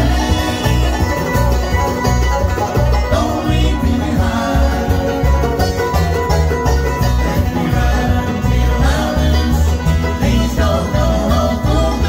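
Live bluegrass band playing: banjo, mandolin and acoustic guitars over a steady low beat.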